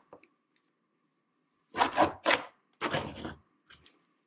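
Stabilo Woody wax crayon dragged quickly across a painting's surface in two fast, sweeping strokes, about two and three seconds in.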